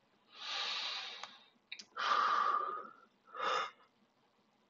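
A person breathing close to the microphone: three breaths, each about a second long with the last one shorter, and a faint hum of voice in the second.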